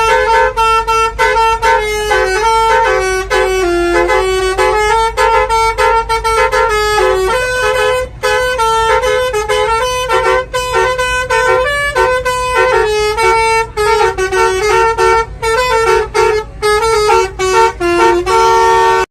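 Indonesian 'telolet' basuri multi-tone bus horn playing a fast tune, its notes jumping several times a second, over a steady low rumble. It cuts off abruptly at the end.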